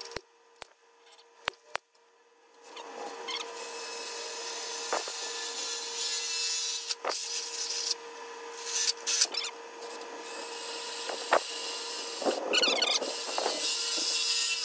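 Cordless drill with a twist bit boring corner holes through the sheet-steel panel of a bandsaw stand: a few clicks, then a steady grinding hiss of the bit cutting metal, with two louder spells in the second half.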